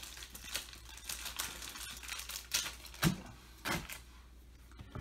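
Crinkly plastic packaging rustling and crackling as it is handled, with a few sharper clicks and snaps a little past the middle.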